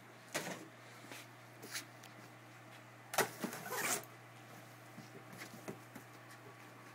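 Cardboard shipping box being opened by hand: a few light knocks and scrapes, then a loud scraping burst lasting about a second, about three seconds in, as the taped flaps are pulled apart.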